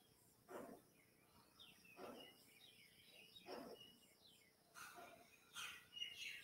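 Faint birds chirping in the background over near silence, with a faint sound repeating about every second and a half.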